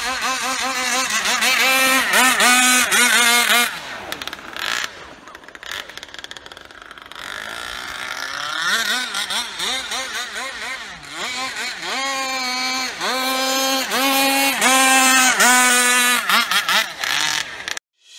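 Small two-stroke fuel engine of a radio-controlled racing boat running at high revs, its pitch surging up and down in quick repeated arcs. It fades for a few seconds in the middle, then comes back loud, and cuts off just before the end.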